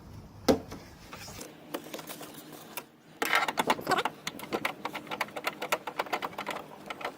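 One sharp click about half a second in, then from about three seconds a rapid, steady run of clicks, many a second, as the thin plastic cover on the door is worked loose with a tool.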